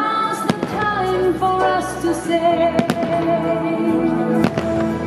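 Fireworks bursting overhead, several sharp bangs spaced a second or two apart, over festive music with sustained melodic notes playing the whole time.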